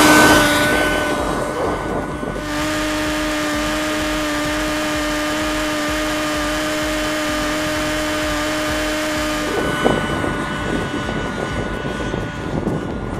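Rossi .61 two-stroke glow engine driving the ducted fan of a model jet, running at high rpm with a steady, high whine. About ten seconds in the whine thins out and rough wind-like noise takes over.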